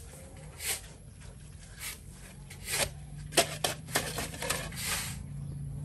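Short, scattered scraping and rubbing noises, a quick cluster of them a little past halfway, as a steel rebar column cage is handled and shifted in a dug footing hole. A low steady hum runs underneath.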